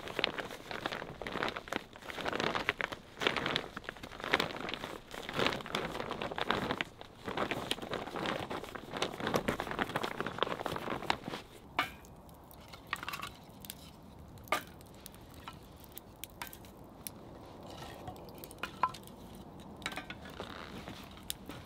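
Plastic tarp crinkling and rustling as it is hauled and spread over a stick roof frame, for roughly the first half. Then quieter, with scattered sharp clicks and pops from a small wood fire crackling.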